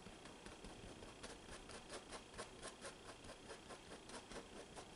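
Faint, quick dabs of a small paintbrush on a stretched canvas, about four a second, as white acrylic paint is stippled onto the painted sky.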